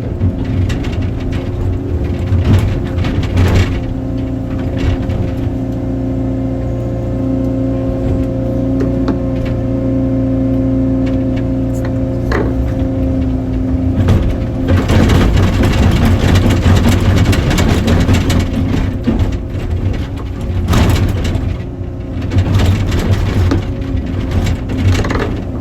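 Excavator's diesel engine running under load with a steady whine, and scattered knocks. About halfway through it turns louder and rougher as the machine works hard.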